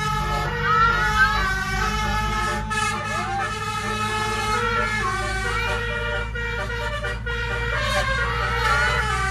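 Basuri telolet multi-tone air horn playing a melody of held notes that step from pitch to pitch, over a steady low hum.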